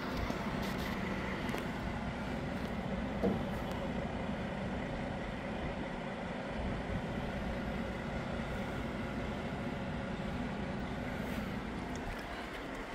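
Scania DC13 diesel engine of a dump truck idling steadily, a low even rumble with a hum; a single short knock sounds about three seconds in.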